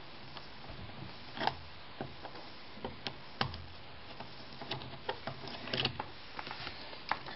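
Scattered light clicks and scrapes of the mounting screws being backed out of an electrical outlet's yoke, over a faint steady hiss.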